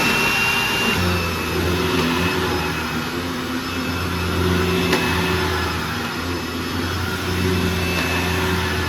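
Hoover WindTunnel Anniversary upright vacuum running at full speed just after switch-on, its freshly rebuilt motor on new 608 bearings giving a steady high whine. About a second in a lower, steady hum joins it, with one sharp click near the middle.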